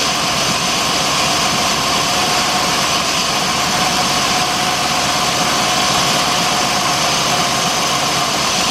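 A 2006 Jeep Grand Cherokee's 3.7-litre V6 idles steadily with its number 3 ignition coil unplugged. The engine is deliberately misfiring on cylinder 3 to test for the P0303 fault.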